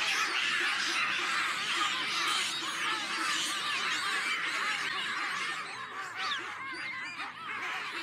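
Many animals calling at once: a dense, continuous chorus of short, overlapping cries that rise and fall.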